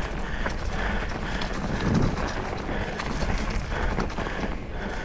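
Trek Slash full-suspension mountain bike riding a rough dirt trail: tyres rolling over dirt and rock, with the bike rattling and clicking and wind buffeting the microphone. A louder low thud comes about two seconds in.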